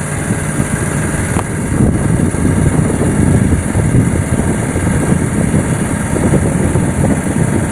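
An engine running steadily at a low, even idle with a constant hum.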